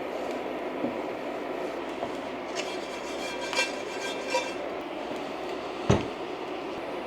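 Home kitchen cooking sounds: a steady hiss, with metal utensils and cookware clinking and ringing a few times and one louder knock near the end.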